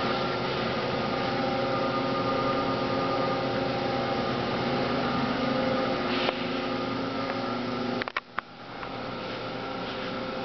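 Steady hum of powered machinery, several steady tones over a noisy drone. About eight seconds in there are a few clicks and a brief dropout, and the hum then carries on somewhat quieter.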